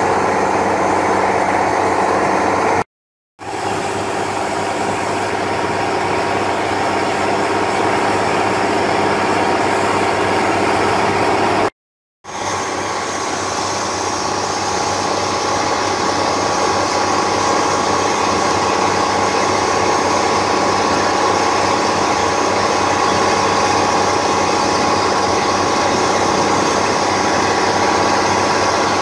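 A boat's engine running steadily under way, with water rushing and spraying past the hull. The sound cuts out briefly twice, about three and twelve seconds in.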